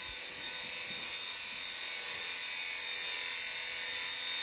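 Electric dog clippers with a comb attachment running, clipping through a dog's coat: a steady motor hum with a high whine that does not change.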